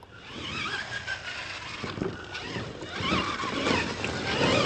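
Radio-controlled monster truck motor whining up and down with the throttle as the truck drives over rough dirt, with scattered knocks from its tires and chassis bouncing.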